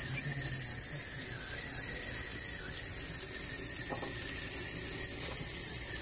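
Steady splashing of a stream of water falling onto wet concrete.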